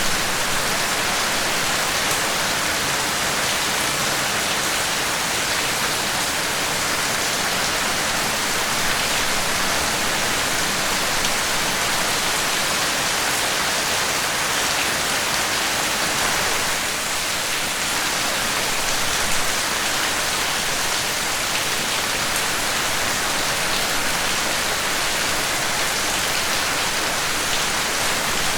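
Steady heavy rainfall: a dense, even hiss of rain falling on surfaces.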